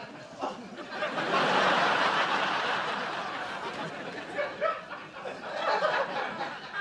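Sitcom studio audience laughing at a gag. The laughter swells about a second in, is loudest for a couple of seconds, then slowly dies down, with a few separate laughs near the end.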